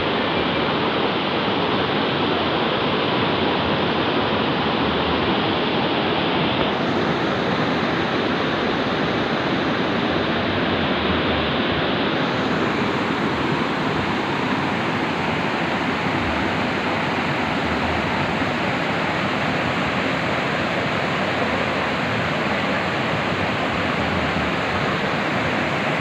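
Rushing water of a rocky stream and its cascades, a steady, loud rush of white water. The sound turns brighter and hissier about seven seconds in and again about twelve seconds in.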